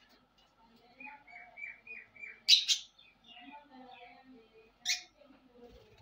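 Lovebirds calling: a quick run of about five chirps, then two loud, shrill shrieks about halfway through and another one near the end.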